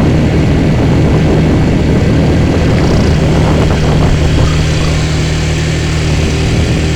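ATV engine running at a steady speed while riding, with a steady rushing noise alongside it.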